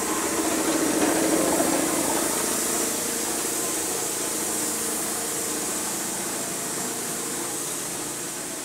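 A power tool's motor running steadily, swelling louder for a moment about a second in and then settling.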